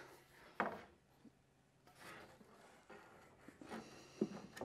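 Faint handling sounds of a CSF aluminum oil cooler scraping and bumping against the edges of a Porsche 911's front bumper opening as it is held up for a trial fit, with a couple of sharper taps near the end.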